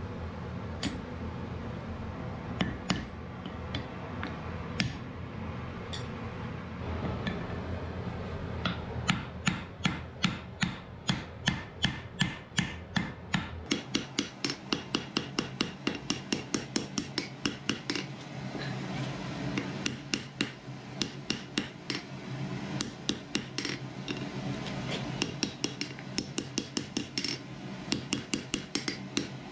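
Hand hammer striking a red-hot wrought-iron axe head on an anvil. The blows are sparse at first, then about 8 s in become a rapid, even run of ringing strikes, about two a second, over a steady low hum.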